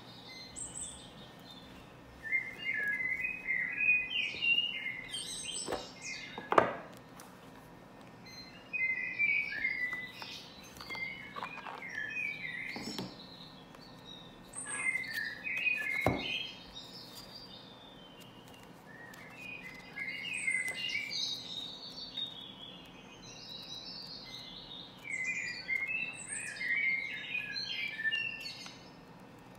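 A bird chirping in repeated phrases a few seconds long, with short pauses between them. A couple of sharp knocks stand out, the loudest about a third of the way in.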